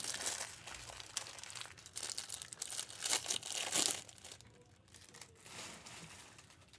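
Trading-card pack wrappers being torn open and crinkled, busy for about four seconds, then only faint handling.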